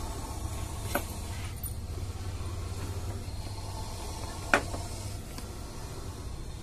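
Two short, sharp knocks on a plastic snake jar, a light one about a second in and a louder one a few seconds later, over a low steady engine-like hum that stops about five seconds in.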